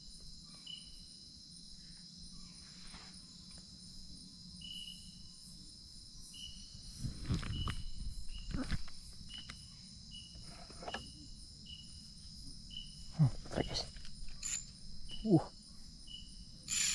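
A steady high-pitched chorus of night insects, with a short high chirp repeating about once a second. A few louder knocks and rustles of handling come about halfway through and again near the end.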